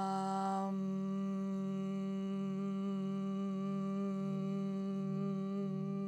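A woman chanting the seed sound "VAM" on one steady pitch through a long exhale. The open "ah" closes into a hummed "mm" less than a second in, and the hum is held until it wavers near the end.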